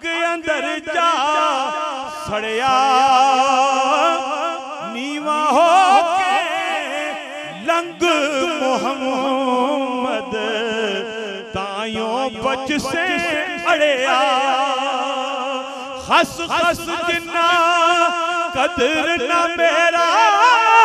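A man singing a devotional Punjabi Sufi kalam into a handheld microphone, in long ornamented phrases with a heavy wavering vibrato on the held notes.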